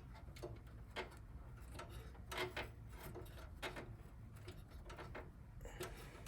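Screwdriver tightening a power-supply mounting screw in a Power Mac G4 Quicksilver's case: a faint, irregular run of small clicks and ticks as the screw is turned home.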